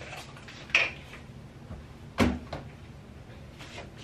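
Toiletries being handled at a bathroom cabinet: a short sharp sound about a second in, a louder knock just after two seconds, then a few faint clicks.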